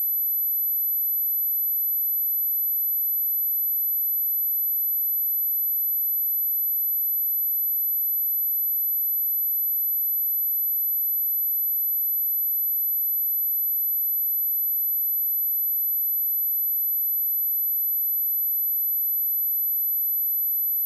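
A steady, high-pitched pure sine tone at 11976 Hz, unbroken and at a constant level: a synthetic speaker test tone.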